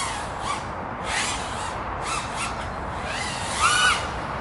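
Wind rumbling and gusting on the microphone, with a single bird call about three and a half seconds in.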